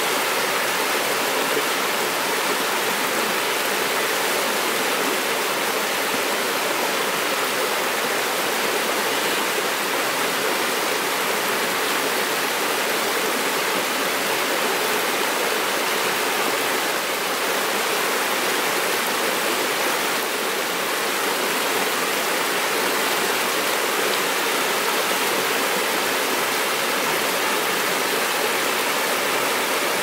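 Steady, even rushing noise with no gusts or swells, spread evenly across the middle and high pitches.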